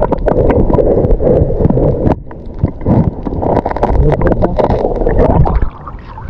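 Rumbling wind noise on the microphone mixed with sloshing, splashing seawater and short knocks, easing near the end.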